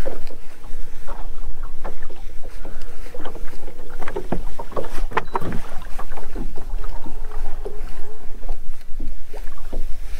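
Wind buffeting the microphone and small waves slapping against the bass boat's hull, with scattered short knocks and taps.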